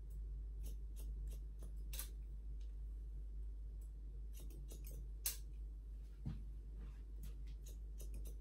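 Hair-cutting scissors snipping hair held over a comb: a run of crisp snips at irregular intervals, over a steady low hum.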